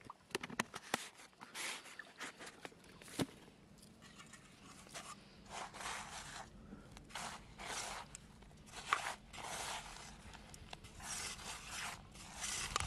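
Hands rubbing and mixing dry flour bait in a metal bowl: repeated gritty scraping and swishing strokes. There are a few sharp clicks in the first few seconds.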